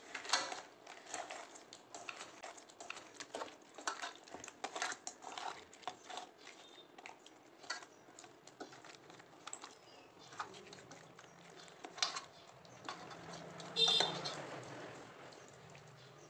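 Hand mixing hilsa fish pieces coated in wet mustard-spice paste in a stainless steel bowl: irregular soft squelches and light knocks of fish against the steel, two or three a second at first and sparser later. A louder knock on the bowl rings briefly near the end.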